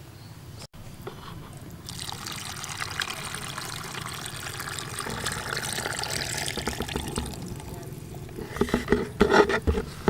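Liquid being poured steadily for several seconds, then a run of knocks and clatter near the end.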